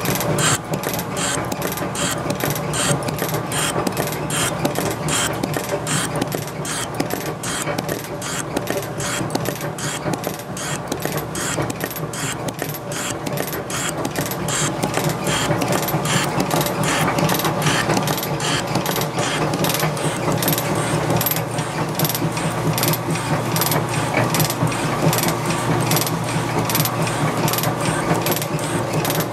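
Sheldon 12-inch metal shaper cutting gummy steel: the ram strokes back and forth at a steady pace, with a sharp click on every stroke over the continuous hum of its motor and gearing.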